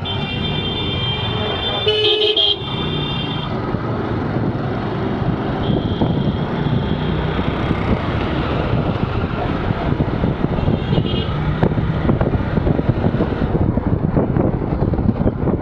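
Vehicle horns honking, two loud blasts in the first few seconds and fainter toots later, over the steady running of a TVS Stryker motorcycle's engine and road noise. Wind buffeting on the microphone grows as the bike picks up speed toward the end.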